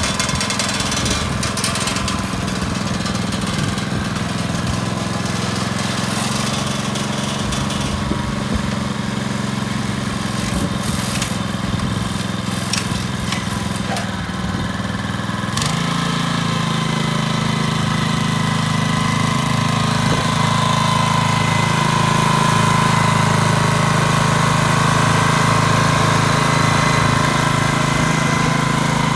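A Kubota TR70 Tsuchinosuke 6.2 hp tiller engine running steadily as the tiller is driven along. About halfway through, its note changes suddenly and becomes a little louder, and a faint whine comes in later on.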